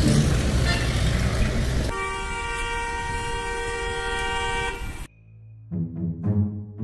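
Loud road-traffic noise, then a vehicle horn held in one long steady blast of about three seconds that cuts off suddenly. Music with struck, drum-like notes follows near the end.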